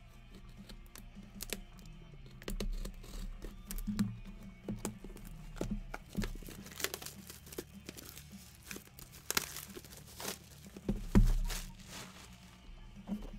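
Plastic wrapping being torn and crinkled off a trading card box, with irregular crackles throughout. A thump about eleven seconds in is the loudest sound.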